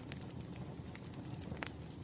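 Wood fire crackling: irregular sharp pops and snaps over a low steady rumble, the loudest pop about one and a half seconds in.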